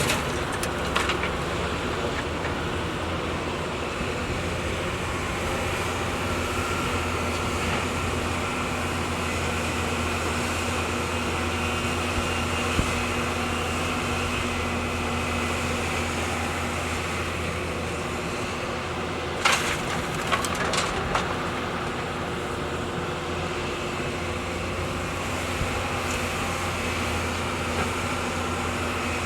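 Heavy diesel construction machinery running at a steady, unchanging engine speed, with a low hum. A few short metallic knocks come about two-thirds of the way through.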